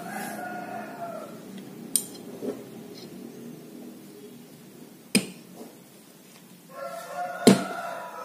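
Small metal fishing-reel parts and tools being handled on a work surface: a few sharp clicks, the loudest near the end. An animal calls twice in the background, once at the start and again near the end.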